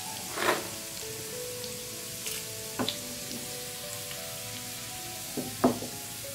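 Chopped garlic and cumin seeds sizzling steadily in hot oil in a frying pan, a tadka being tempered, with a few sharp clicks, the loudest near the end.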